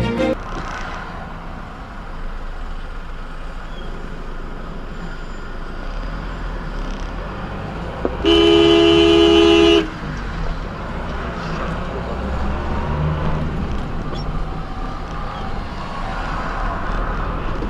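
Steady road and engine noise of a car in traffic, with one loud car horn blast lasting about a second and a half, about eight seconds in.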